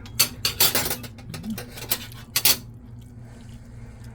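A utensil scraping and clinking against cookware in a quick run of strokes for about two and a half seconds, then stopping, over a steady low hum.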